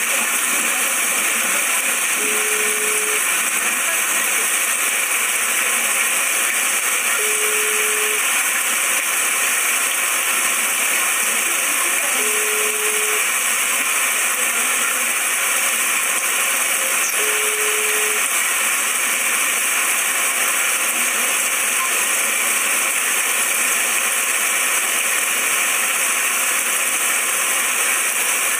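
Heavy rain pouring down: a loud, steady hiss. A short low beep sounds four times, about five seconds apart, in the first two-thirds.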